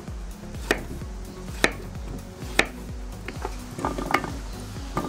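Kitchen knife chopping through a zucchini onto a plastic cutting board: three sharp knocks about a second apart, then lighter taps as the slices are dropped into a plastic bowl, over background music.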